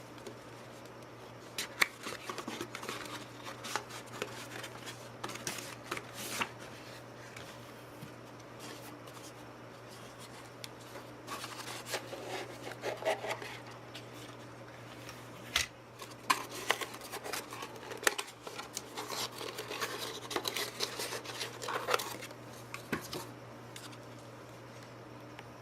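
Hands handling computer hardware while fitting a CPU to a motherboard: scattered sharp clicks and taps, with stretches of rubbing and scraping of plastic and metal parts. A steady low hum runs underneath.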